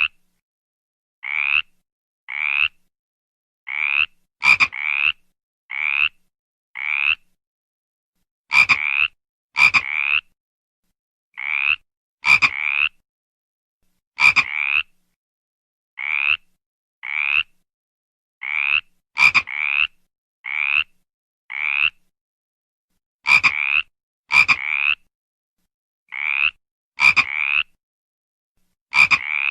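A frog croaking: short rasping croaks about once a second, some in quick pairs, with complete silence between them.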